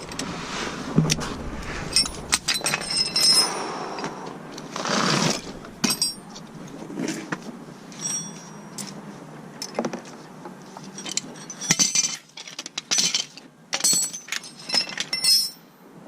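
Metal hand tools and parts clinking and clattering in irregular taps, some with a short bright metallic ring.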